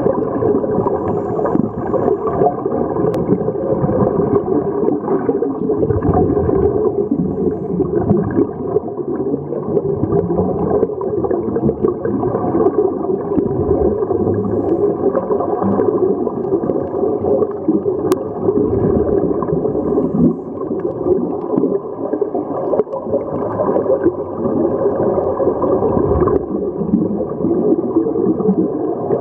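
Scuba divers breathing through their regulators underwater, the exhaled bubbles gurgling in a steady, dense, muffled rumble as heard through a camera's underwater housing.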